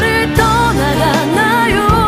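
Korean ballad: a singer's voice with vibrato over backing music with bass and a beat.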